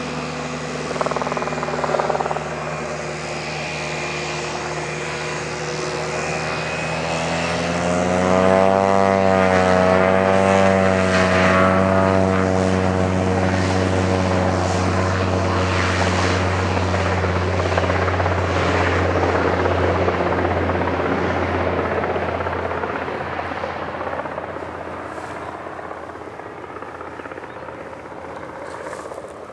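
Cessna Caravan single-engine turboprop at takeoff power, its propeller drone growing loudest as it passes about eight seconds in, with a wavering sweep through the tone. It then fades steadily as the plane climbs away.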